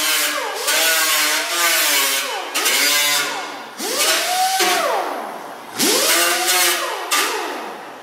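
Small right-angle grinder with an orange sanding disc, triggered in short bursts about once a second: each time it whines up to speed and winds back down.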